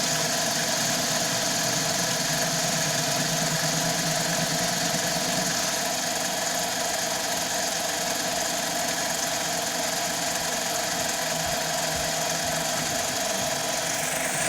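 CNC mini lathe running through its turning program: a steady mechanical whine from the machine's motors and drive, holding several even tones with no change in speed.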